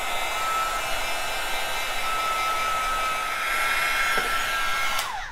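Heat gun blowing: a steady rush of air with a fan whine, switched off about five seconds in, the whine falling away as the fan winds down.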